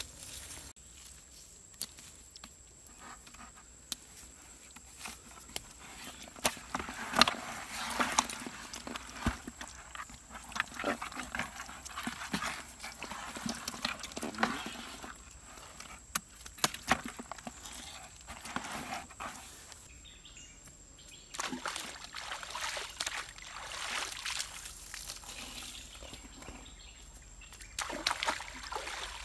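Wet sloshing and irregular splashes as hands grab and move live fish in a basin of shallow water, with sharp clicks and rustles between.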